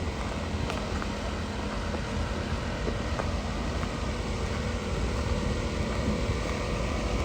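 Steady low engine rumble with a few faint clicks.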